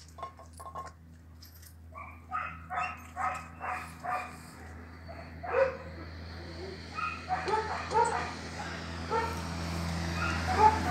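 Dogs barking: a run of about five barks a couple of seconds in, a louder single bark near the middle, then a faster string of shorter yips that grows louder toward the end, over a steady low hum.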